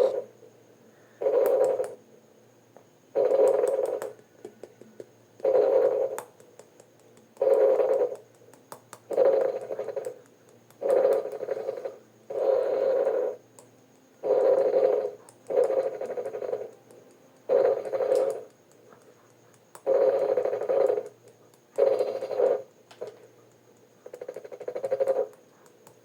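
A creature-call sound effect repeated over and over: about fourteen short, steady calls, each under a second long, coming about every one and a half to two seconds.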